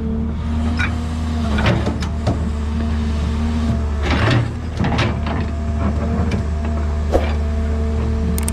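Komatsu PC210LC crawler excavator's six-cylinder diesel engine running steadily under working load, with a thin hydraulic whine above it and scattered clanks and knocks of the bucket and boom at work.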